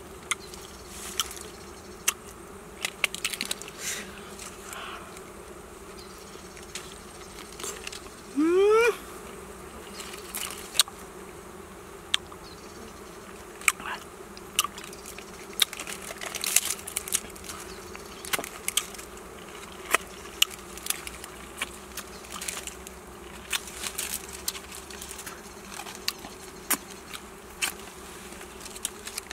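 Swarm of wild honeybees buzzing in a steady hum around their exposed comb, with one louder, rising buzz about eight seconds in as a bee passes close. Scattered sharp clicks and snaps of twigs and leaves being handled.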